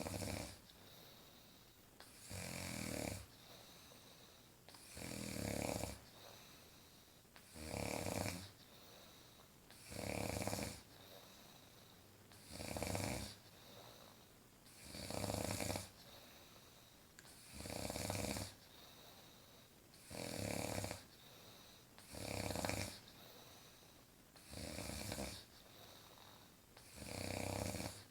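A woman snoring in her sleep in an even rhythm: a snore about every two and a half seconds, each lasting about a second, with quiet breathing in between.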